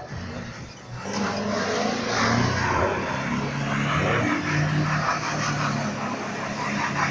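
Semi truck's diesel engine revving hard as it spins donuts, its pitch rising and falling, over a steady rush of tyre noise from the spinning wheels.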